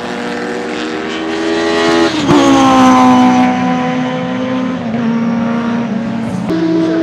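Mercedes 190E Evo2 DTM race car's 2.5-litre straight-four engine running hard at speed. Its pitch climbs a little, jumps louder about two seconds in, then slides slowly down as the car pulls away.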